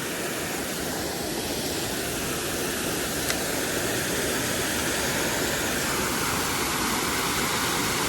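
Small creek waterfall rushing steadily into a pool.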